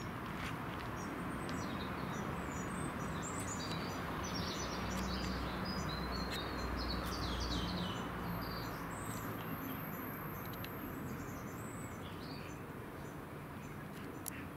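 Small songbirds chirping and twittering over steady outdoor background noise. The chirps cluster in the first two-thirds and thin out near the end.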